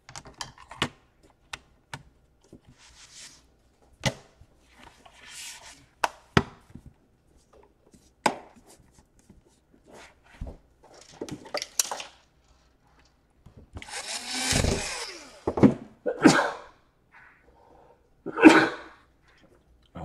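A laptop's bottom cover being pressed and snapped into place, giving a run of sharp clicks and knocks as its clips seat. In the last few seconds a person coughs several times, loudest near the end.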